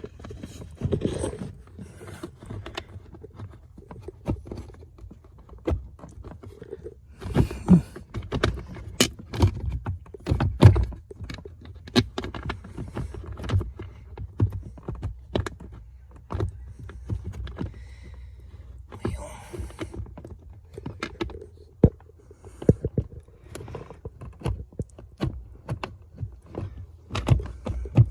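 Irregular clicks, knocks and clatter of hands and tools working a replacement blower motor into its housing under the dash while trying to get the mounting screws in, over a steady low rumble.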